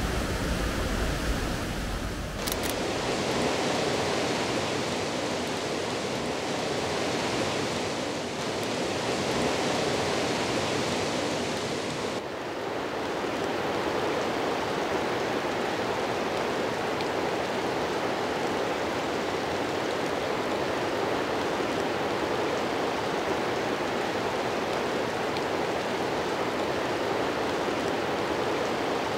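River Conwy in spate rushing through a rocky gorge: a steady rush of fast white water. Its sound shifts abruptly twice, about two and a half seconds in and again about twelve seconds in.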